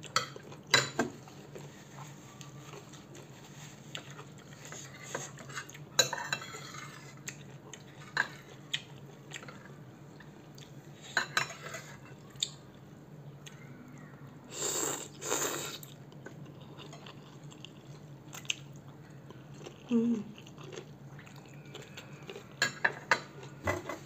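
Metal spoon and wooden chopsticks clicking and scraping against a ceramic bowl of spicy instant noodles while they are eaten, with scattered chewing. Two longer noisy sounds come about fifteen seconds in, plausibly slurps of noodles.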